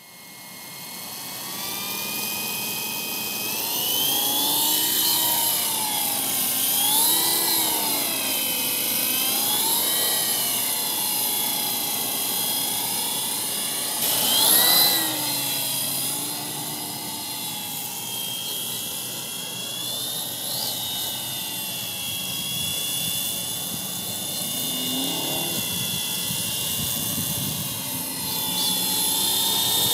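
MJX F49 brushless RC helicopter's motor and rotor whining. The sound builds up from silence over the first few seconds, then the pitch rises and falls repeatedly as rotor speed is changed. There is a brief louder surge about halfway through.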